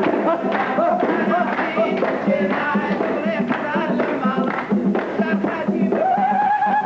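Kurdish folk dance music: an ornamented melody over a steady beat, with a long held note starting near the end.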